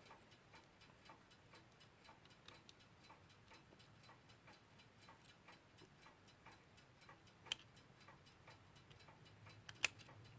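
Faint ticking of a mechanical clock, with two sharper clicks, one about two-thirds of the way in and one near the end.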